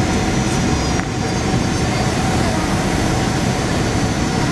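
Steady cabin noise of a British Airways Boeing 767 in flight, heard from a window seat beside the wing: rushing airflow and the wing-mounted Rolls-Royce RB211 turbofan engine running, with a few faint steady tones in the noise.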